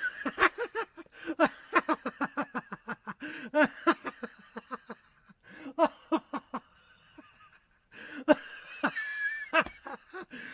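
A person laughing in runs of quick, short bursts, several runs separated by brief pauses.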